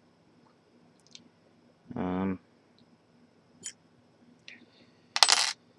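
Faint scattered clicks of a large Corbin padlock and its picking tools being handled. A short hummed 'hmm' comes about two seconds in, and a brief loud rustling burst comes near the end.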